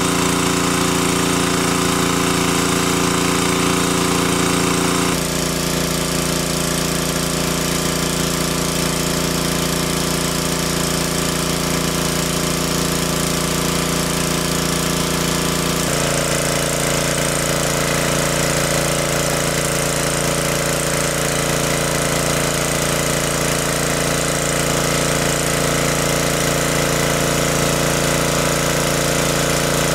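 Engine-driven water pump running steadily at a constant speed. Its pitch and tone change abruptly about five seconds in and again about sixteen seconds in.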